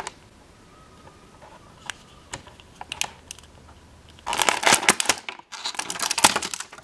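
Small hard-plastic toy pieces and a clear plastic packaging tray handled, clicking and crackling. A few scattered light clicks at first, then two dense runs of clicking in the second half with a short pause between them.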